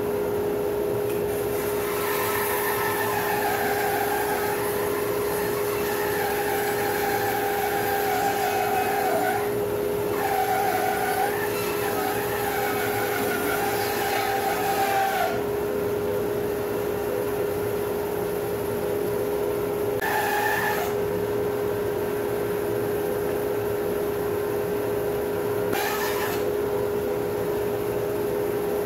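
Laguna 14BX 2.5 hp bandsaw running with a steady hum while its blade resaws a log fed through on a sled jig, a wavering cutting sound that lasts about thirteen seconds, then the saw runs on without load. Two brief bursts of the same cutting sound come later.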